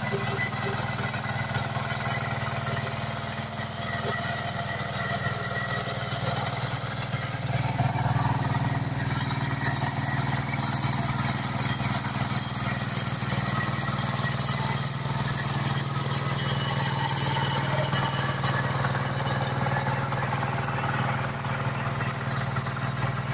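Kirloskar 15 HP power tiller's single-cylinder diesel engine running steadily under load while its rotary tines churn through soil.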